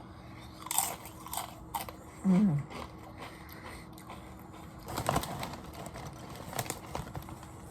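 Crunchy snack chips being bitten and chewed, crisp crunches coming in clusters. A short hummed "mm" falling in pitch comes a little over two seconds in.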